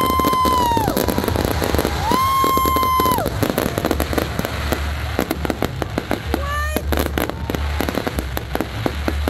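Fireworks going off. A steady high whistle stops under a second in and a second one sounds from about two to three seconds, then dense crackling and popping follows, with a short rising whistle about six and a half seconds in.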